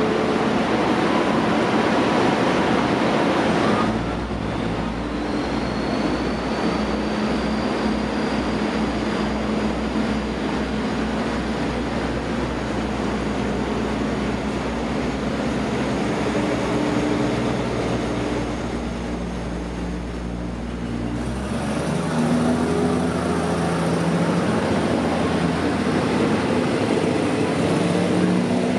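Diesel train running at a station: a steady loud rumble of engine and rail noise. The engine note shifts about four seconds in and again near the end, where it rises.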